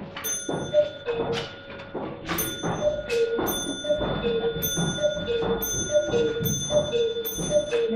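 Cuckoo clock calling cuckoo over and over, its two wooden bellows whistles sounding a high note then a lower one, a little faster than once a second, among sharp ringing clicks.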